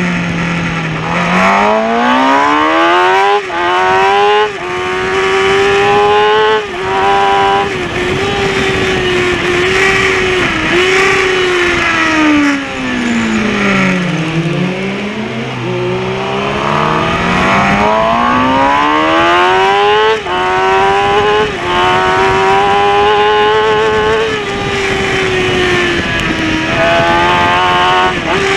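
Kawasaki ZX-6R inline-four sport bike engine at racing speed, heard from onboard with wind rush: revs climb hard with quick breaks at each upshift. About twelve seconds in the revs drop steeply through downshifts under braking into a slow corner, then the engine pulls up through the gears again, with one more quick upshift about twenty seconds in.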